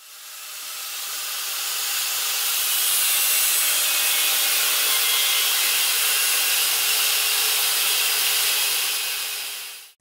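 Handheld grinder with a cutting disc slicing through an old steel bearing race to split it, a steady high hiss of the disc in the metal. It fades in over the first couple of seconds and fades out just before the end.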